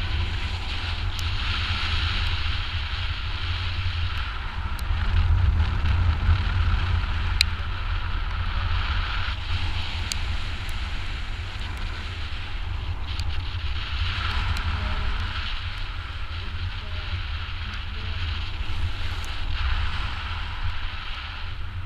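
Wind rushing over a GoPro HERO4's microphone during paragliding flight: a steady low rumble with a hiss that swells and eases every few seconds.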